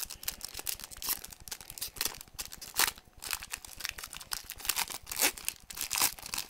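Trading card pack wrapper being crinkled and torn open, with cards rustling: a rapid, irregular run of sharp crackles and rustles.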